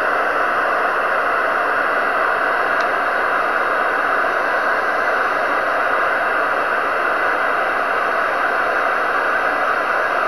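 Loud, steady hiss like static, even throughout, with no gusting or rise and fall. Nothing shows whether it is storm wind and rain on the microphone or the recorder's own noise.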